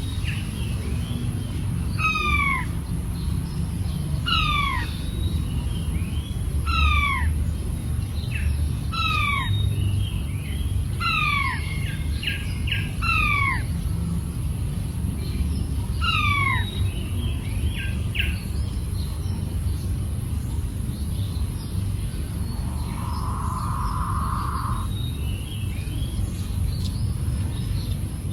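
King quail giving a series of about eight falling whistled calls, one every second or two, with soft short chirps in between. The calls stop about halfway through, leaving a steady low background rumble.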